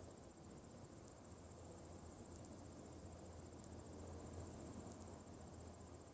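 Faint, steady low hum of unknown origin heard in the sky, under a thin, high, finely pulsing whine and faint ticks about every second and a half.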